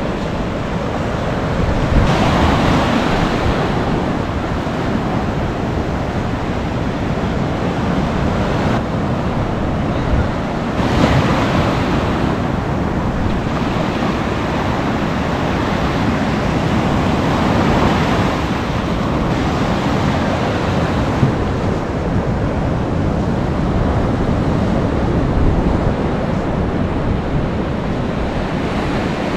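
Ocean surf breaking on the shore, swelling louder with each wave every several seconds, with wind buffeting the microphone.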